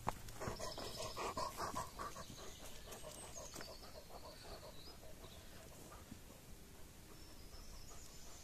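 A dog panting faintly as it runs past close by, with a single knock at the very start.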